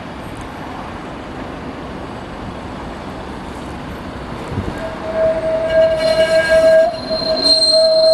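A train rumbling along the rails. About five seconds in, a steady high-pitched squeal from its wheels sets in and grows louder.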